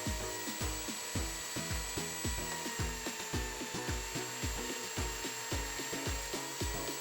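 Background music with a steady beat, over the steady whine and wood noise of a power tool working wood.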